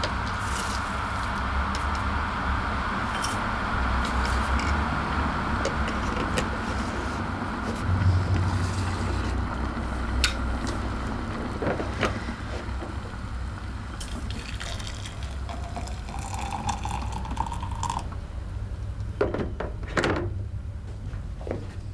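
Electric kettle heating water: a steady rushing hiss that dies away about halfway through. After it come a few sharp clicks and clinks of glass and kitchenware on the counter.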